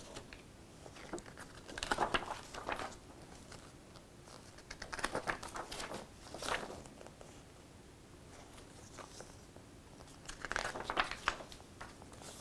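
Paper pages of a printed instruction manual being turned by hand, in three bursts of page rustling: about two seconds in, around five to six seconds, and again near the end.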